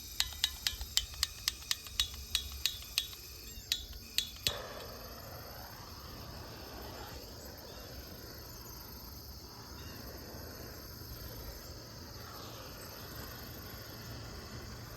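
About fifteen sharp clicks in quick succession over the first four and a half seconds, then a steady soft hiss. Insects, such as crickets, chirp steadily the whole time.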